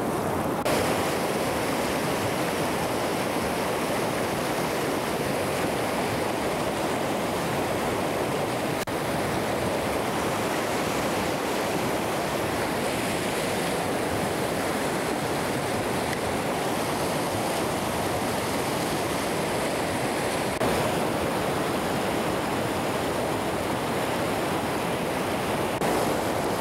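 River rapids rushing over rocks: steady white-water noise.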